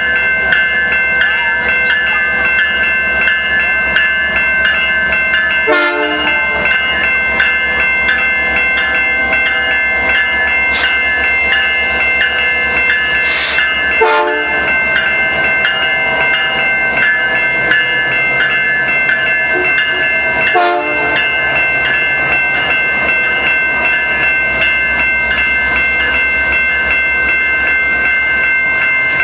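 Level crossing bells ring steadily and rapidly while a Canadian Pacific freight train's cars roll past over the crossing, with a constant rolling rumble underneath.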